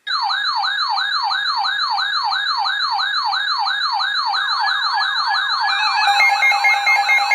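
Electronic siren-style alert tone starting abruptly: rapid rising sweeps in pitch, about four a second. About six seconds in, a steady tone and fast pulsing beeps join it.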